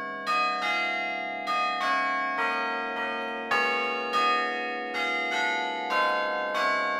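Tuned bells playing a slow melody, single notes struck a half second to a second apart, each one ringing on under the next.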